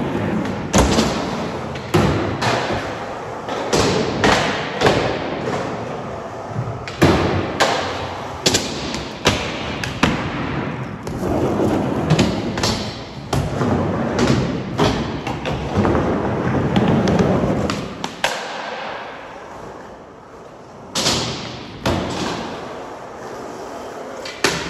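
Skateboard wheels rolling on a smooth concrete floor, with repeated sharp knocks from the board popping and landing.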